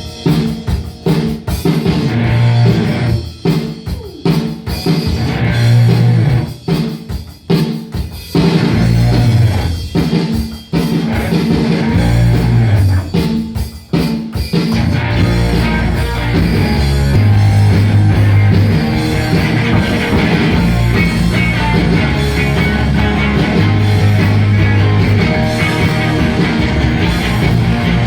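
Loud rock music on drum kit, electric guitar and bass, played in stop-start hits with short breaks for roughly the first half, then running on continuously from about halfway through.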